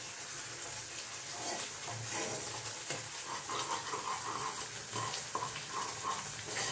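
A spoon stirring thick masala gravy bubbling in a pan on the stove: a soft sizzle with scattered scrapes of the spoon against the pan as the gravy cooks down.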